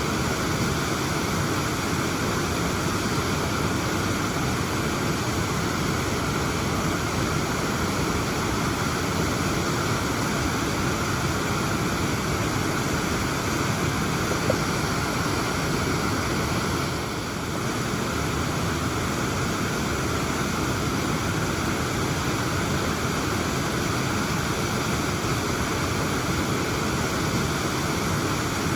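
Waterfall: a steady, even rush of falling water, dipping slightly for a moment about two-thirds of the way through.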